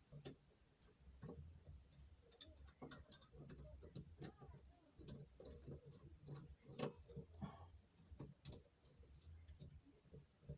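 Faint, irregular clicks and light knocks of metal parts being handled as an angle grinder is screwed onto its homemade stand.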